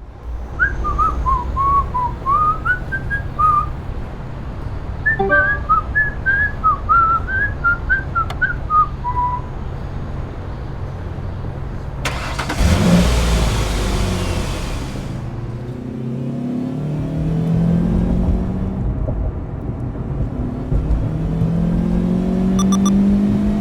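A car engine running with a steady low rumble, with high whistled notes over it for the first ten seconds. About twelve seconds in comes a rushing noise lasting about three seconds, then the engine revs up and down as the car accelerates.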